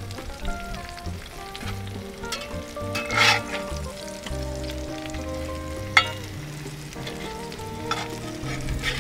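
Hot oil sizzling in a cast iron skillet as french fries are scraped up and flipped with a metal spatula. A loud scrape comes about three seconds in and a sharp clank at about six seconds.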